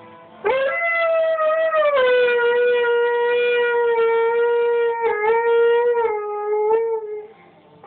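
Alaskan Malamute howling: one long howl that starts about half a second in, drops a little in pitch after the first second and a half, then holds steady until it fades near the end.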